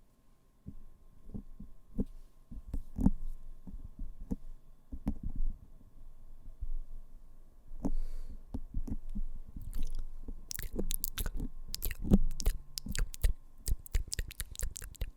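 Fingers tapping on a microphone: irregular, muffled low thuds. About ten seconds in, sharper crisp clicks join in, coming quickly and unevenly.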